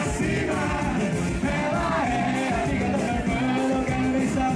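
A man singing into a handheld microphone through a stage PA, over backing music with a steady beat.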